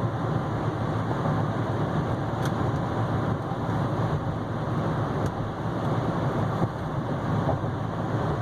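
In-cab sound of a Chevy Silverado 3500HD Duramax pickup cruising at steady speed: a steady low drone of engine, tyres and wind that does not change.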